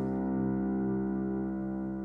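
Background music: a single held keyboard chord that slowly fades.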